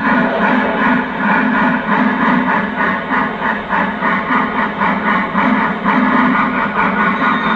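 Digital steam sound from a Lionel Legacy RailSounds model of a Santa Fe 4-8-4 locomotive, played through the model's speaker: steady exhaust chuffing at about three to four chuffs a second as the engine runs.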